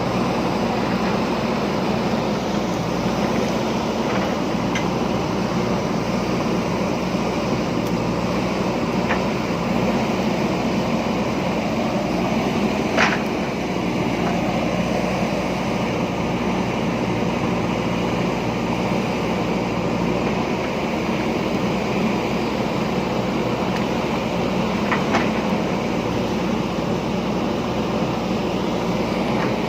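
JCB backhoe loader's diesel engine running steadily under work, with a few sharp knocks; the loudest comes about halfway through.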